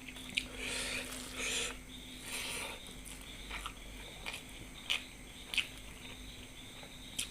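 Close-up chewing and mouth sounds of someone eating, in soft bursts about once a second, with a few sharp clicks.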